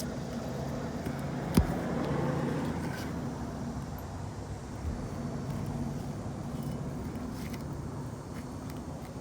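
Steady low engine hum, as of a vehicle running nearby, with one sharp click about one and a half seconds in.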